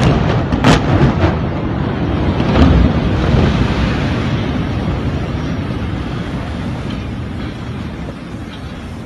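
Dynamite demolition of buildings: a loud blast at the start, then more sharp detonation cracks about a second and two and a half seconds in, followed by a long rolling rumble of the collapse that slowly dies away.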